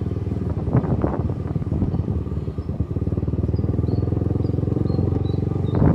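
Small motorcycle engine running steadily under way, a little louder in the second half.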